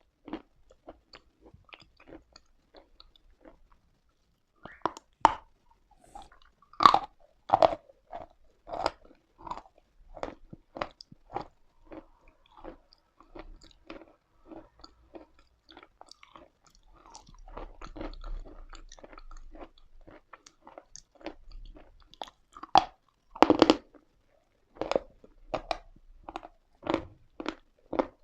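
Someone biting into and chewing chalk, with sharp, dry crunches about twice a second. The loudest bites come about 5, 7 and 23 seconds in.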